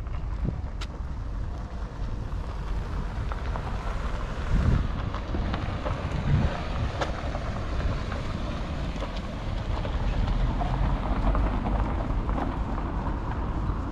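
Outdoor ambience: a steady low rumble with wind buffeting the microphone, and two low thumps about four and a half and six seconds in.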